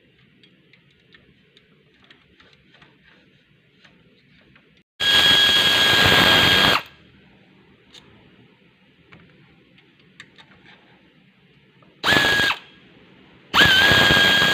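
Electric power drill whirring in three bursts: a spin of nearly two seconds about five seconds in, a brief one near twelve seconds, and a longer one starting near the end. It is used while taking a manual transmission apart. Between the bursts, small clicks of tools and metal parts being handled.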